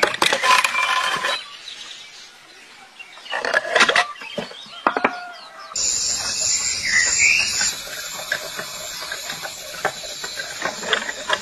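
A hand-turned wooden silk-winding reel clatters and knocks in two bursts as it is spun. About six seconds in, a steady high hiss starts and runs on under scattered light clicks.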